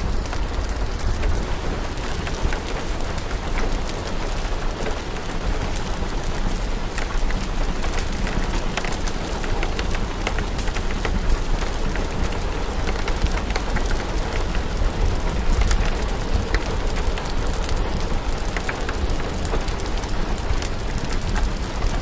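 Steady rain over a deep low rumble, with frequent small crackles and pops from a fireplace fire.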